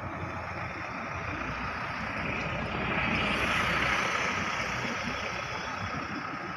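A road vehicle passing close by on the street: its engine and tyre noise swells to a peak about halfway through and then fades away, over a steady street hum.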